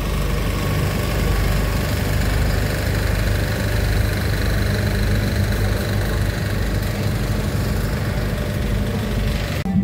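Farm tractor engine running steadily at low speed while towing a heavy parade float.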